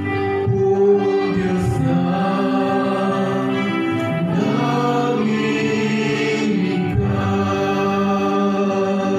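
Voices singing the responsorial psalm at Mass, a slow chant-like melody of long held notes.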